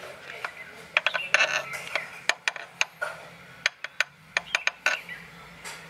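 Engine oil filter being handled and tapped: a string of sharp, irregular clicks and taps in a few quick clusters.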